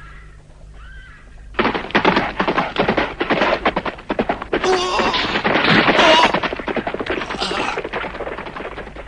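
Rapid, sustained gunfire like machine-gun volleys, starting suddenly about a second and a half in and continuing for several seconds.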